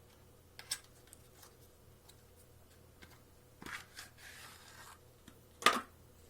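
Mechanical keyboard switches being handled and pressed: a sharp click, then a short cluster of clicks with a brief scraping rub, and a louder click near the end.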